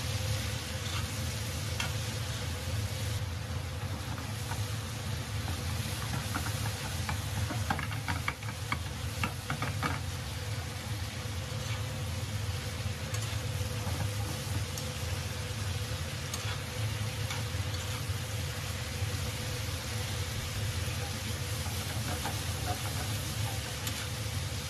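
Pork and celery sizzling as they are stir-fried over high heat in a stainless-steel pan, a metal spatula scraping and clicking against the pan, most busily about eight to ten seconds in. A steady low hum runs underneath.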